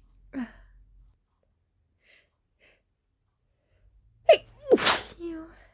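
A woman's powerful sneeze near the end: a quick pitched gasp, then a loud explosive sneeze, followed by a short voiced tail. She takes these sneezes for a sign of getting sick rather than allergies.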